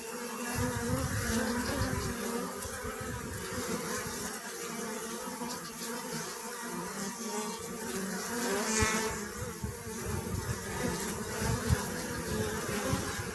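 Many bees buzzing together: a steady, many-layered hum, with an irregular low rumble underneath.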